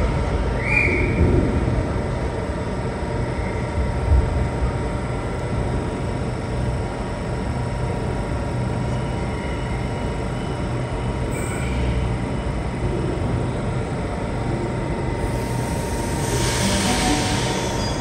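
Sydney Trains double-deck electric train standing at the platform, its equipment humming steadily with a constant whine. About fifteen seconds in, a rush of hiss rises over it.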